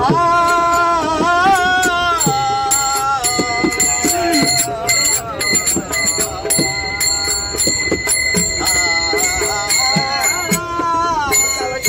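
Group of men singing a Marathi Warkari bhajan (abhang) in two long melodic phrases, accompanied by brass hand cymbals (taal) struck in a steady rhythm, their bright metallic ring sustained under the voices.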